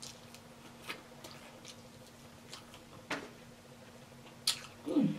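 Close-miked eating sounds: soft mouth clicks and smacks of chewing, spaced out, over a faint steady hum. A brief falling "mm" comes just before the end.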